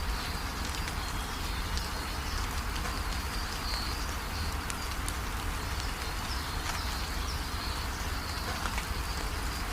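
Steady rain falling, with short high bird chirps breaking through at irregular intervals.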